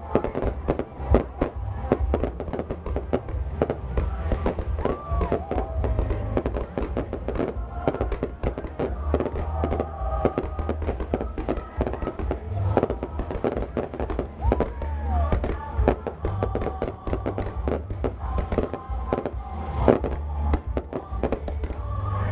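Fireworks display: a dense, unbroken run of rapid bangs, pops and crackles of shells bursting.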